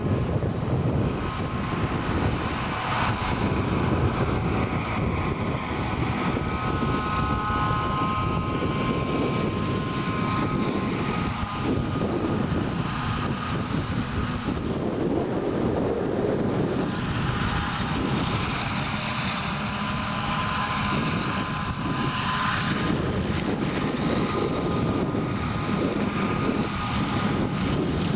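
Self-propelled forage harvester and tractors running steadily at full work while chopping maize for silage, a continuous heavy diesel drone with a faint high whine.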